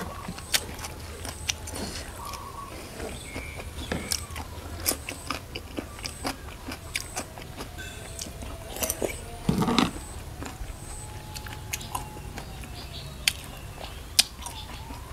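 Close-up eating sounds of a person eating a spicy duck-embryo-egg salad: chewing with wet mouth noises and scattered crisp bites and clicks. Near the end come sharp crunchy bites into a raw vegetable stick.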